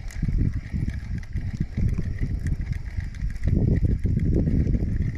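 Spinning reel being cranked and the rod handled while a hooked bream is reeled in, heard as low, irregular rumbling and knocking that grows louder about three and a half seconds in.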